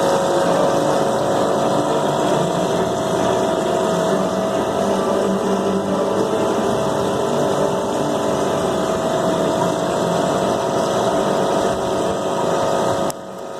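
Steady mechanical hum with several held tones and a wash of noise from an aquarium pump running. It cuts off abruptly near the end.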